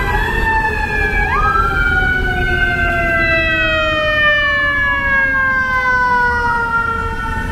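Fire engine siren wailing: long tones that slide slowly down in pitch, jumping back up about a second in and again near the end, over a low rumble of city traffic.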